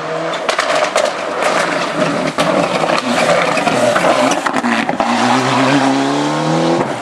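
Ford Escort rally car at full throttle, its engine note rising and falling through the gears, with frequent sharp cracks over the engine. The pitch climbs steeply as it accelerates in the last couple of seconds.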